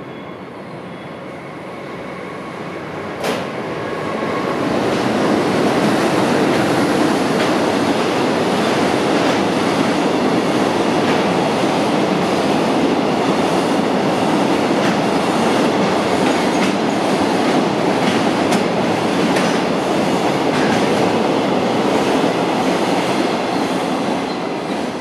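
A long freight train of tank wagons and container wagons passing through at speed, its wheels clattering over the rail joints with a steady heavy rumble. The sound builds over the first few seconds, with a single sharp click about three seconds in, and stays loud through the rest.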